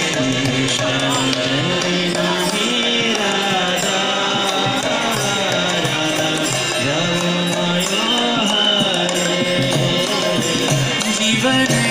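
Devotional kirtan: chanted singing with a melody that glides over long held steady tones, with drum accompaniment.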